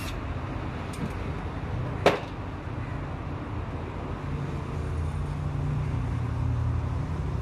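Steady low rumble of vehicle or road noise, with one sharp knock about two seconds in. A low hum swells up after about four seconds.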